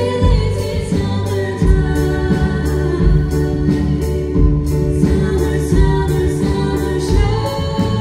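Two girls singing a song with a live band of flute, acoustic guitar, keyboard and drums, the drums keeping a steady beat.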